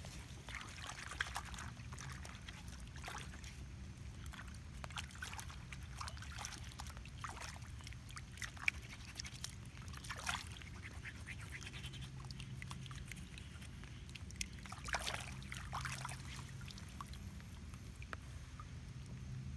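Muddy puddle water sloshing and splashing as hands scrub a fossil megalodon tooth clean, in short irregular splashes.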